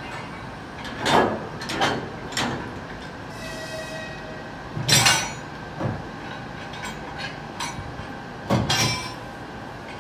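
EP2K electric locomotive standing with its equipment humming steadily, while about six loud, short noises come from its front-end coupling gear as it is being coupled to the train, the loudest about a second in, halfway through and near the end.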